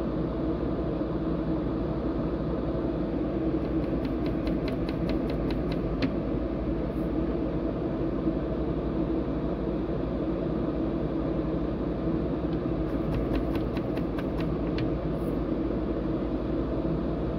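Steady hum of a fan running, with two short runs of light, quick ticks, about five a second, about four seconds in and again about thirteen seconds in.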